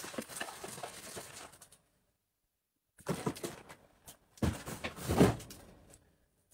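Rustling and knocking of gift boxes and packaging being handled and moved, with one louder knock about five seconds in. The sound drops out completely for about a second, around two seconds in.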